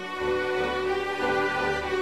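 Background orchestral music with sustained strings, swelling in just after the start.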